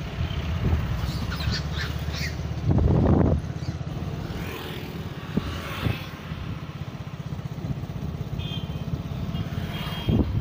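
Small two-wheeler engine running steadily while riding along, with a low, evenly pulsing hum and a brief louder rush about three seconds in.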